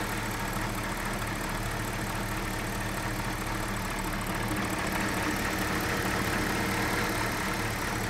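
BMW 545i's 4.4-litre V8 idling steadily under the open hood, with no lifter tick, knocking or belt squeal to be heard: it sounds healthy.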